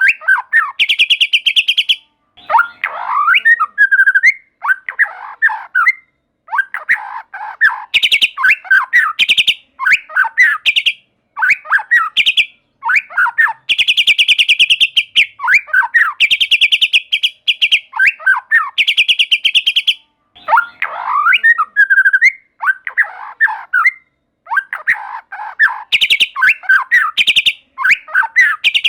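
White-rumped shama (murai batu) singing: phrases a second or two long with short gaps between them, alternating rapid buzzy rattles with quick, varied whistled notes that sweep up and down.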